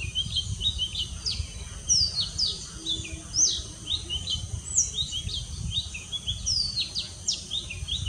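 Male oriental magpie-robin singing its long, varied song: a continuous run of short high whistled notes and quick down-slurred phrases, over a low background rumble.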